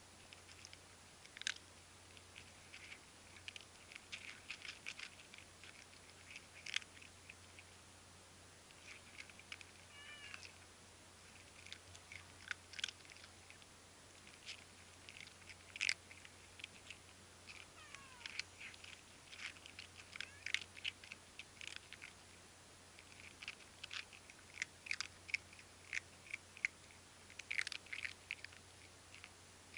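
Stray cats eating, with irregular clusters of quick crunching and chewing clicks, and a couple of brief small squeaky vocal sounds from a cat in between.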